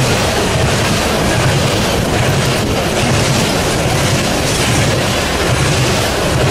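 Norfolk Southern freight train of tank cars rolling past close by. Its wheels make a loud, steady rumble on the rails, with repeated clacks.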